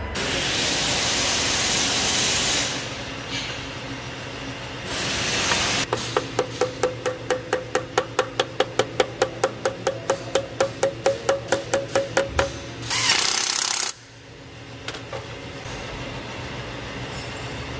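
Metal hammering on a tractor part during workshop repair: a run of about two dozen sharp, ringing strikes, about four a second, between loud bursts of hissing.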